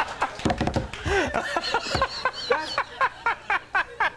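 A man laughing in quick short bursts, mixed with talk, with a couple of dull low thumps in the first half.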